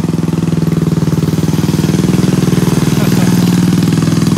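DTV Shredder tracked stand-up vehicle's engine running under way with a fast, even pulse, picking up a little in pitch and loudness about halfway in.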